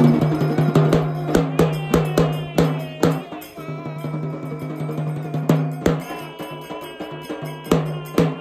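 Music carried by drums: hard, uneven drum strikes over a steady low drone, with a wavering melody line; the strikes come thick at first, thin out in the middle, and pick up again near the end.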